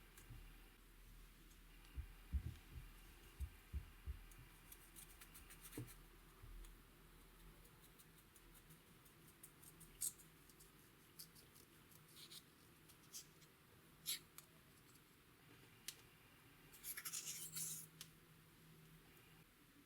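Faint sticky clicks and crackles from slime being handled and mixed, with a few soft low thumps in the first few seconds and a short burst of dense crackling near the end.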